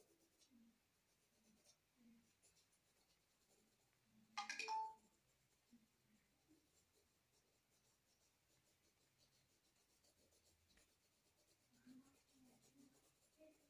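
Faint scratching of a graphite pencil shading on drawing paper, in short repeated strokes. A single brief, louder pitched sound cuts in a little over four seconds in.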